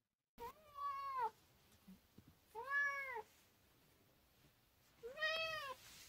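Brown tabby cat meowing three times, about two seconds apart, each meow drawn out and rising then falling in pitch: a clingy cat calling for attention.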